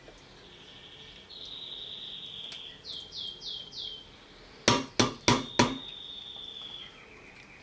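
Four sharp knocks in quick succession about five seconds in: a utensil tapped against the rim of a stainless steel pot to shake off the chopped liver. Around them, a high thin trilling song with a run of four quick falling chirps, from a small bird.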